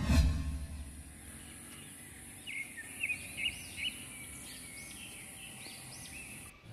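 Small birds chirping repeatedly from about two and a half seconds in, over a steady high hiss of outdoor ambience; a brief low rumble opens it and fades within a second.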